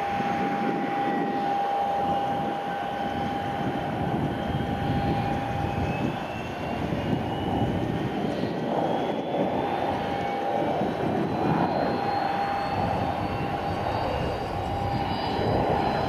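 Pilatus PC-12 single-engine turboprop on approach with its gear down: a steady propeller and engine drone with a held tone and a thin turbine whine that climbs slowly in pitch, growing a little louder near the end as the aircraft nears. Gusty wind on the microphone adds a rough rumble underneath.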